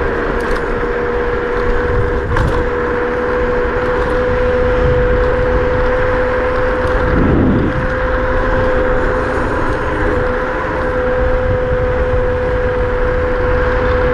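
Kugoo M4 Pro electric scooter riding at top speed: the brushless motor gives a steady whine over a low rumble of wind and tyres. There are a couple of faint clicks a few seconds in, and a brief swell of low rumble about halfway through.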